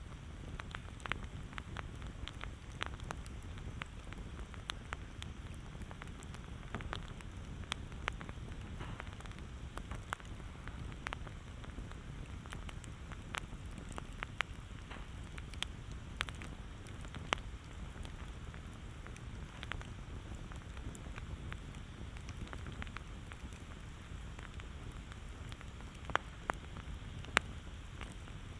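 Campfire crackling: irregular snaps and pops of burning wood over a low steady rumble, with a couple of louder pops near the end.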